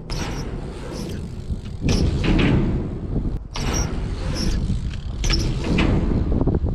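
Wheels rolling over skate park ramps in repeated surges every couple of seconds, with a strong wind buffeting the microphone throughout as a low rumble.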